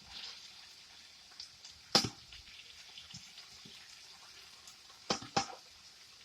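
A serving utensil knocks and scrapes against cookware while potatoes are served out: one sharp clink about two seconds in and two more close together near the end, over a faint steady hiss.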